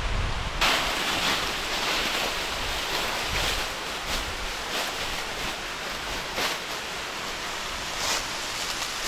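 Steady rushing of an 80-foot waterfall, its water falling over rock, with brief low wind rumble on the microphone at the very start.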